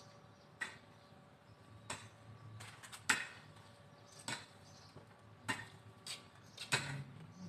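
Garden hoe chopping into soil in repeated strokes, about six sharp hits roughly one a second.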